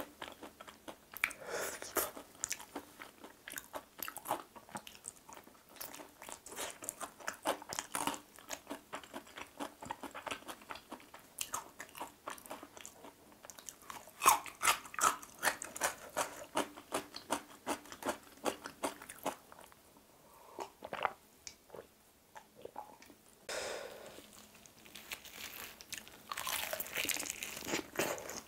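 Crunching and chewing of crispy-coated fried chicken drumsticks, bite after bite, with a quieter spell a little past the middle and louder crunching near the end.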